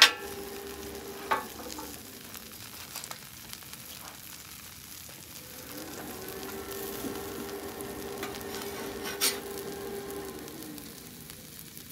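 Sandwich sizzling on a hot buttered flat-top griddle, with a few sharp clicks of a metal spatula against the steel plate. A faint steady hum comes in about halfway through.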